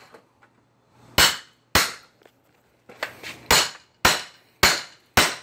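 Hammer blows striking an old window frame to knock it loose: about half a dozen sharp, ringing strikes, roughly two a second, with a short pause partway through.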